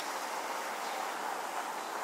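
Steady outdoor background hiss of wind and water with no distinct events, opened by a brief sharp click.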